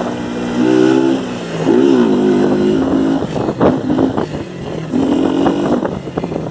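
Motorcycle engine revving hard through an open exhaust, its pitch climbing and dropping with each blip of the throttle, with a run of sharp popping crackles from the exhaust midway through.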